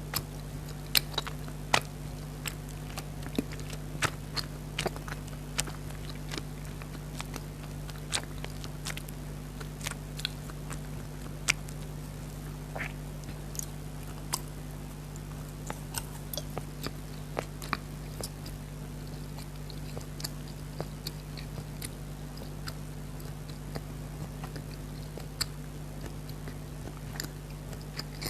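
Close-up chewing and biting of jelly candies: irregular sharp mouth clicks and smacks, over a steady low hum.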